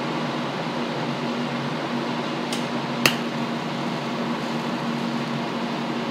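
Steady fan hum, with a faint click and then a sharp snap about three seconds in as a TIG welding arc is struck to tack a motorcycle shift shaft.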